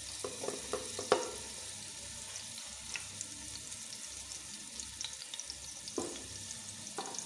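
Freshly added sliced onions sizzling steadily in hot oil in a metal pot, stirred with a wooden spoon. The spoon knocks against the pot a few times in the first second or so and twice near the end.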